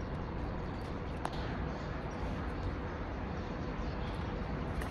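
Steady outdoor background noise with a faint steady hum, and one light tap about a second in.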